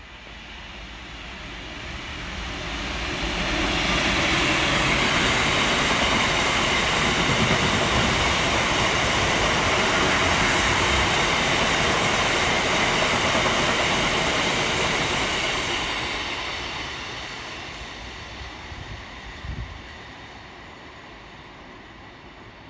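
Diesel-hauled freight train passing through a station. The noise builds over about four seconds as the locomotive draws level, holds loud while the wagons roll by, then fades as the train goes away, with one short knock near the end.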